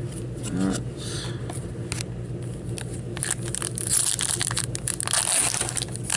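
Trading card packs and cards being handled: scraping, then dense crackling and crinkling from about halfway in, over a steady low hum.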